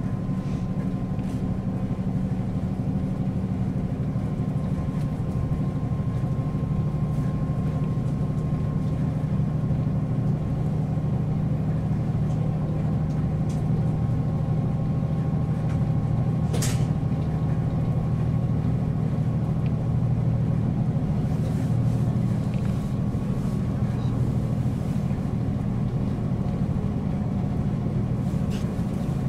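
JR Hokkaido KiHa 40 series diesel railcar under way, heard from on board: a steady low drone of its diesel engine and running gear. A short hiss cuts in about two-thirds of the way through.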